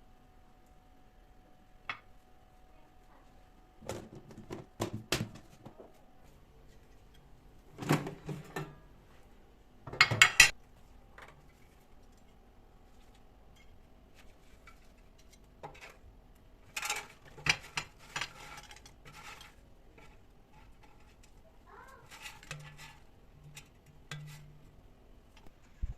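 Dishes and cutlery clinking and clattering in scattered bursts of handling, the loudest clatter about ten seconds in.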